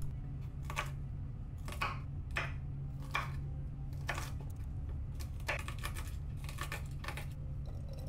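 Kitchen knife chopping a bundle of green beans on a wooden cutting board: a string of irregular knocks, roughly one every half second, over a steady low hum.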